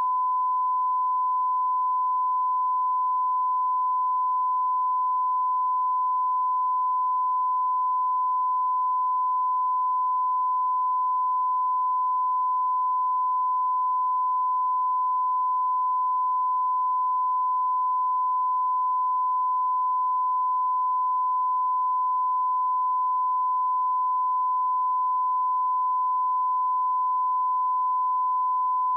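A pure 1008 Hz sine-wave test tone, held steady at one pitch and level without a break.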